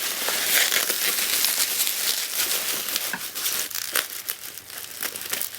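Bubble wrap being handled, crinkling and rustling, with scattered sharp crackles.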